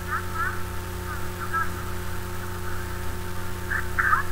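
Steady electrical mains hum under thin, squawky snatches of Japanese dialogue: a line at the start, a few syllables about a second and a half in, and a louder exclamation near the end.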